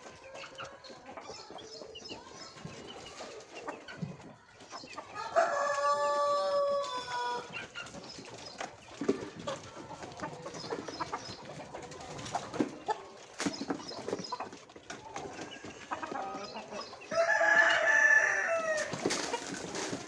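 Rooster crowing twice, about five seconds in and again near the end, each crow about two seconds long and dropping in pitch at its tail. Softer poultry calls and scattered knocks fill the gaps between.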